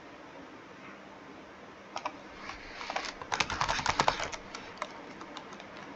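Typing on a computer keyboard: a quick run of key clicks starting about two seconds in, thickest in the middle and thinning out near the end.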